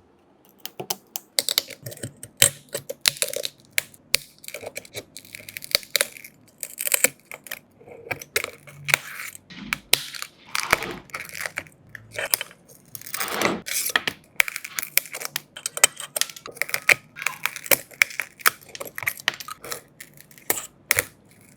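Small repair tools clicking, tapping and scraping on a smartphone during a cracked back-glass repair: a quick, irregular run of ticks and knocks, with a couple of longer scraping, tearing sounds in the middle.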